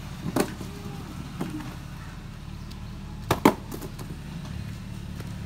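A cardboard package being kicked and knocking against a concrete doorstep: a few sharp thumps, the loudest a quick pair about three and a half seconds in, over a steady low hum.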